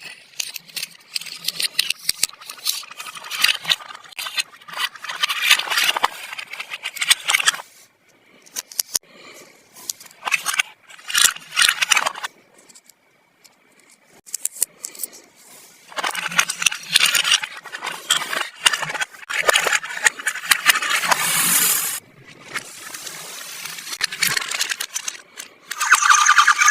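Small plastic toy pieces and packaging being handled, in bursts of clicking, crinkling and scraping with short pauses between.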